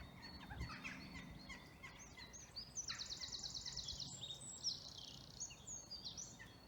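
Several songbirds singing: scattered short chirps and whistles, with a fast trill of rapidly repeated high notes from about three to four and a half seconds in.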